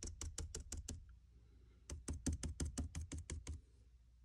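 Stiff paintbrush stippling white acrylic paint through a road stencil onto a plaster model street: quick dry tapping, about eight dabs a second, in two runs with a pause of about a second between them, stopping near the end.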